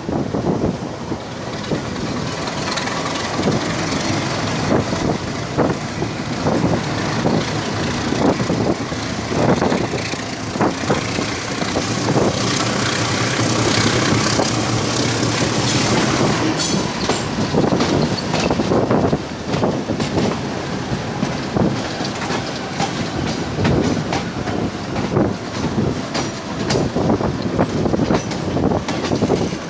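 Passenger train heard from on board, with steel wheels rumbling and clacking irregularly over rail joints and points as it rolls into the station.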